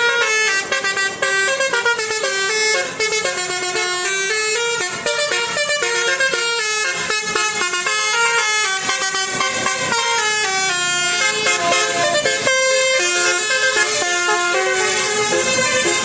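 Indonesian bus 'telolet' horn: a multi-tone air horn playing a quick melody of short stepping notes, sounding without a break.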